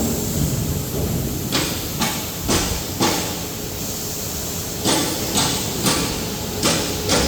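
Maxi-roll paper towel band saw cutting machine running with a steady rumble, and a run of short clanking, hissing strokes about half a second apart: one group about a second and a half in, another near the end.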